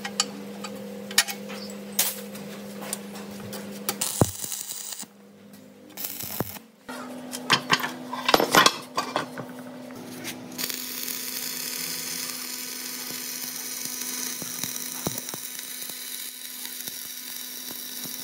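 Workshop sounds: sharp metal clinks and knocks over a steady machine hum, then from about ten seconds in a steady hiss that runs on under the hum.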